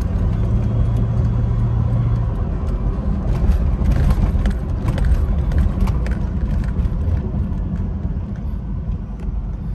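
Interior noise of a 1996 Chevrolet Impala SS on the road: the low rumble of its 5.7-litre LT1 V8 and road noise. A steady low engine hum sits on top for about the first two seconds.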